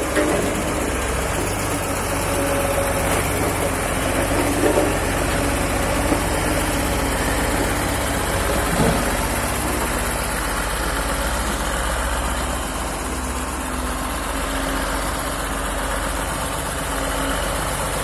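Case single-drum road roller's diesel engine running steadily as the machine drives over gravel and rubble, with a deep rumble throughout. A couple of short, louder knocks come through around the middle.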